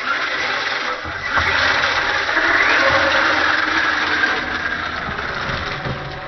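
Radio-controlled drift car running, its motor and tyres getting louder about a second in, then easing off toward the end.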